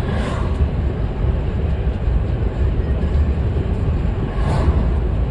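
Steady low rumble of a bus at road speed heard from inside the cabin: engine and tyre noise. Two brief swells of rushing noise, one just after the start and one near the end.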